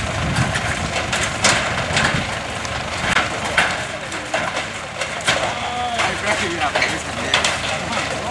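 Irregular sharp knocks and clatter of hand work stripping a corrugated zinc roof, with voices in the background.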